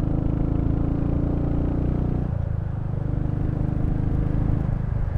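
Royal Enfield Hunter 350's single-cylinder engine running steadily while the bike is ridden, its note dropping a little just over two seconds in and then holding steady.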